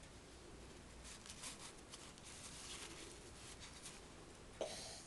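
Faint rustling of fabric being folded and pinned by hand, with one short sharp click about four and a half seconds in.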